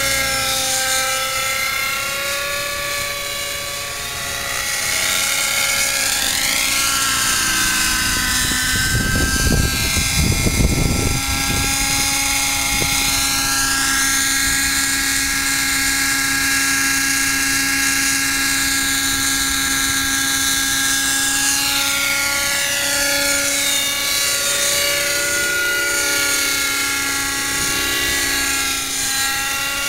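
X-Cell 90 RC helicopter in flight: its .90-size nitro engine and rotors drone steadily, the pitch slowly rising and falling as it manoeuvres and passes. A brief low rumble comes about nine to eleven seconds in.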